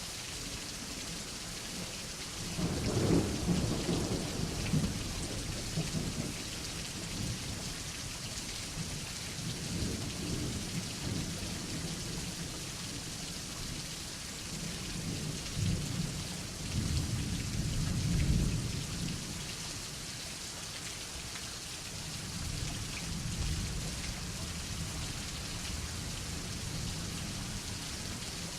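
Steady rain falling, with rolling thunder rumbling in long low swells, loudest a few seconds in and again past the middle.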